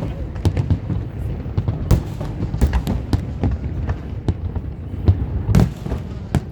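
Aerial fireworks going off in quick, irregular succession: a steady low rumble of booms with sharp cracks and bangs, a few of them louder, the loudest about five and a half seconds in.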